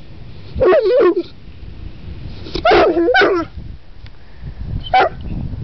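Saint Bernard 'talking': drawn-out, wavering vocal sounds whose pitch bends up and down. They come in three bouts: one about a second in, a longer double one in the middle, and a short one near the end.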